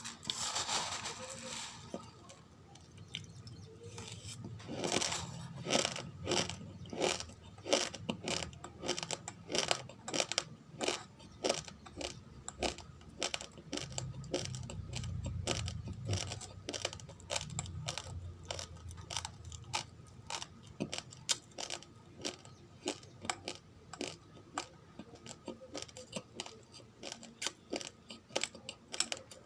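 Raw, uncooked rice grains crunching as they are chewed close to the microphone: a steady run of sharp crunches, several a second.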